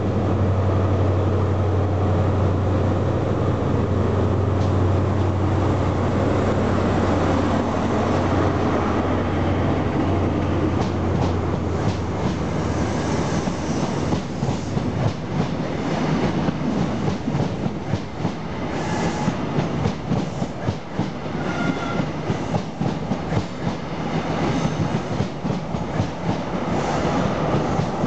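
CrossCountry HST (InterCity 125) passing: the leading Class 43 power car's diesel engine drones steadily for the first nine seconds or so, then the Mark 3 coaches run by with a quick, irregular clickety-clack of wheels over rail joints.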